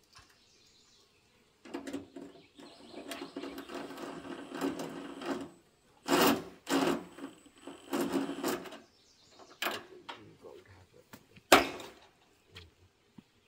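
Cordless drill driving screws into a metal gazebo frame overhead: one long steady run of the motor, then several short bursts, followed by a couple of sharp knocks near the end.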